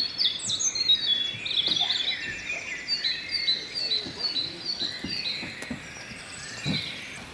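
Several songbirds singing in an early-morning dawn chorus, with one bird repeating a short chirped note a few times a second in the middle. A soft low knock sounds near the end.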